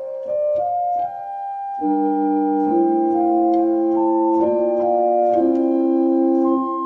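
Pipe organ playing on its harmonic flute stop on the Great: a clear flute-toned melody of held notes, joined about two seconds in by lower sustained chords.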